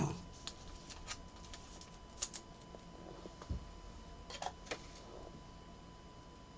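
Faint rustles and light clicks of trading cards being handled, with a few scattered small taps and one soft thump about three and a half seconds in, over a faint steady tone.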